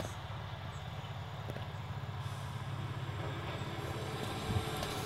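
Engine of a heavy vehicle running steadily in the distance, slowly getting louder as it approaches, with a few clunks near the end.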